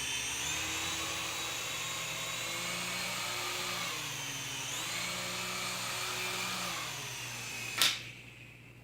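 Small remote-control toy helicopter's electric motor and rotors whining steadily, the pitch wavering up and down as the throttle changes. Near the end there is one sharp knock, and the whine then winds down and fades away.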